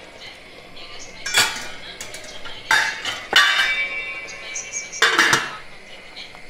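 Stainless steel lid and steel cooking pot clanking together as the lid is handled and set back on the pot: four sharp metallic clatters spread over a few seconds, one of them ringing briefly.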